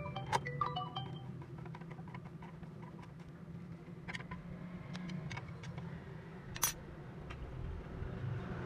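Scattered small metal clicks and taps of a hand tool on the bolts and screws of a Honda CD70's engine side cover, one sharper click near the end, over a steady low hum. A few quick xylophone-like music notes sound in the first second.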